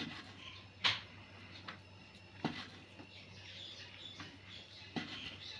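Kitchen knife slicing a boiled sausage into rounds on a wooden cutting board. About five faint, sharp taps of the blade meeting the board, the loudest about a second in, with soft rasping of the cut between them.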